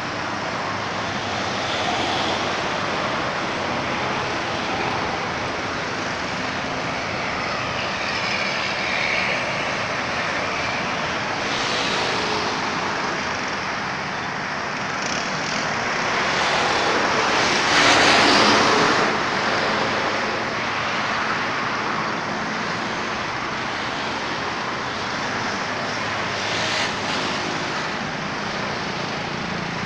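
Steady roar of road traffic. Vehicles pass close by in louder swells, the loudest a little past the middle.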